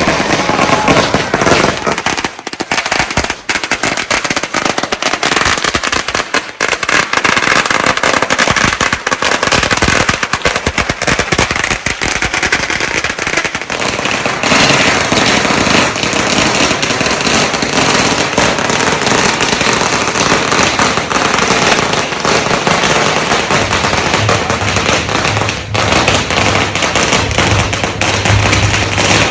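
Firecrackers going off in a rapid, continuous crackle of dense bangs that goes on without a break.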